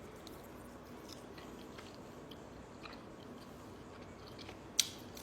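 A person chewing food, with faint small mouth clicks and one sharper click near the end.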